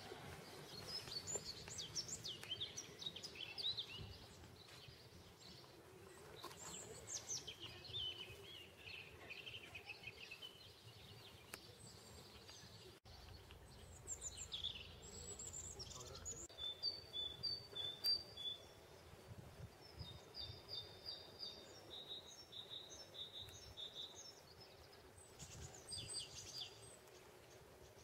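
Small songbirds singing in a garden: varied high chirps and short trills, then from about two-thirds of the way through a bird repeating short high notes in quick series, over a steady low background hum. The sound cuts out briefly about halfway through.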